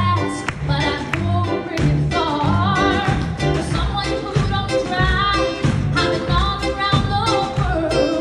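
Live band music with a steady beat and a woman singing into a microphone.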